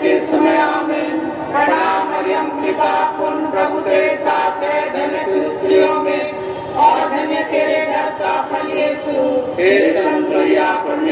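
Many voices singing together in unison, a devotional chant sung by a congregation.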